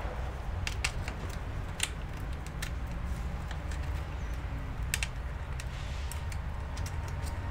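Scattered light clicks and taps as a MacBook Pro logic board is set into its aluminium case and pressed into place, over a steady low hum.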